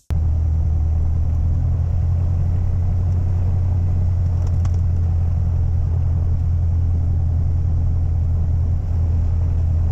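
Piper Arrow's piston engine and propeller running steadily at low power, a constant low drone heard from inside the cockpit.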